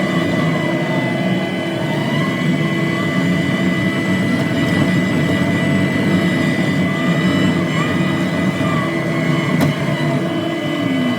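Diesel engine of a compact track loader running hard under load as it moves a heavy rock, with a steady high whine over it. The engine speed drops right at the end.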